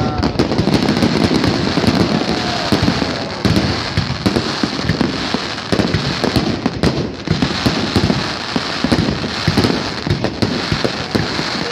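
Aerial fireworks bursting overhead: a dense, unbroken run of sharp cracks and bangs with hardly a gap between them.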